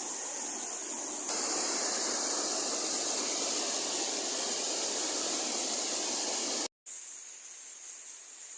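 Rushing water, a steady noisy rush. It shifts abruptly about a second in, drops out briefly near the end, then returns quieter with a faint steady high whine over it.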